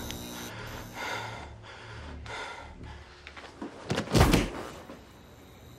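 Low, swelling dramatic score, then one loud, sudden heavy hit with a whoosh about four seconds in.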